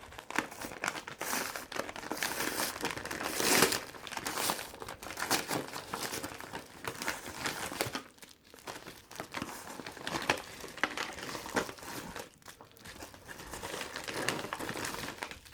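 Hands opening a parcel and unwrapping its packaging: an irregular, continuous rustle and crackle of handled wrapping, with brief pauses about eight and twelve seconds in.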